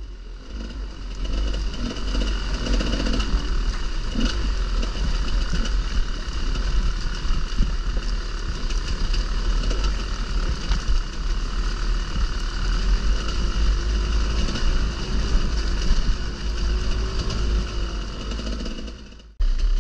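Enduro motorcycle engine running steadily while riding, over a constant low rumble. The sound drops out abruptly just before the end.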